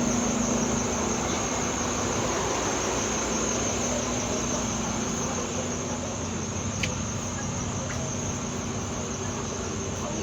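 Bus with its engine running, giving off a steady high-pitched whine over a low hum and a rumble: the loud, weird sound that is only heard when the engine is on.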